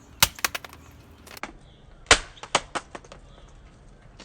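Hard plastic TV remote controls clacking and knocking as they are struck and handled: a sharp knock about a quarter second in with a quick flurry of small clicks after it, another knock near the middle, and the loudest hit about two seconds in, followed by a few lighter clacks.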